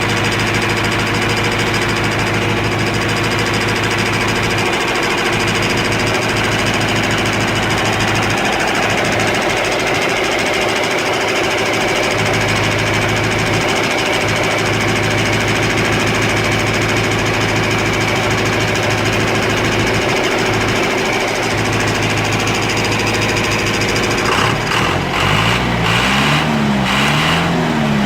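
Diesel engine of a John Deere 310A backhoe running steadily after its fuel filter change and bleeding. Near the end its pitch swings up and down over and over.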